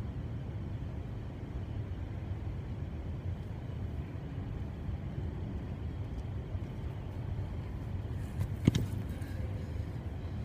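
Steady low hum of room noise in a large, empty gymnasium, with a single sharp thump close to the microphone about two seconds before the end.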